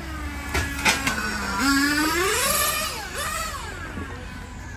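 Drawn-out, wavering cries that slide down in pitch and then swoop up and back down again, with two sharp clicks about half a second and a second in.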